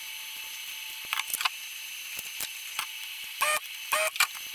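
Handheld vacuum desoldering iron drawing molten solder off a power-supply board's capacitor pads: short sucking bursts, a pair about a second in and another pair near the end, over a steady hiss.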